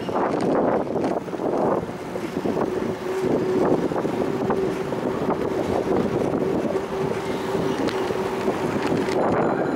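Wind rushing over the microphone of a camera carried on a moving bicycle, with road rattle and scattered clicks from the bike, and a steady hum from about three seconds in until near the end.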